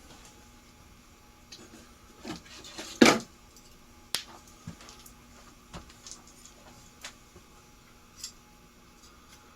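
Scattered small clicks and taps of ceiling-fan parts being handled during reassembly, with one louder knock about three seconds in.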